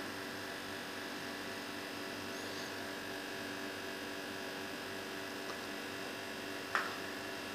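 Steady electrical hum with a light hiss, and a single short click near the end.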